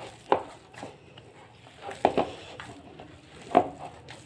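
Bare hands kneading wet ground chicken kofta mixture as gram flour is worked in, in a plastic bowl. Soft squelching with a few sharper slaps or knocks against the bowl.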